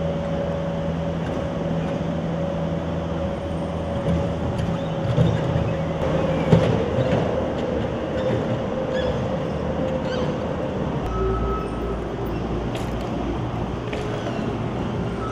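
Compact track loader's engine running steadily as it pushes dirt with its bucket, with a few clanks and knocks around the middle. About eleven seconds in the sound changes to a deeper steady rumble.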